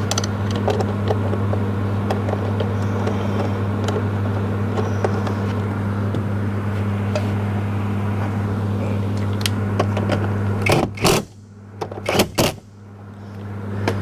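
Steady low machine hum with faint scattered clicks of small screws and a screwdriver being handled while the door handle bracket is screwed in. About eleven seconds in the hum cuts out for a couple of seconds, a few sharper clicks stand out, and the hum then fades back in.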